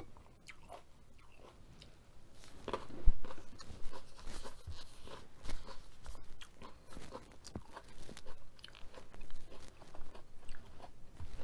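Close-up mouth sounds of a person chewing food: wet clicks and crunches, starting about two seconds in and going on irregularly, with one louder crunch just after.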